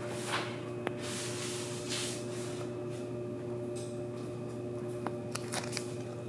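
Thick 20 mil clear protective film being peeled and handled off a car's paint-protected body panel: short swells of crackly rustling, with a few sharp clicks near the end over a faint steady hum.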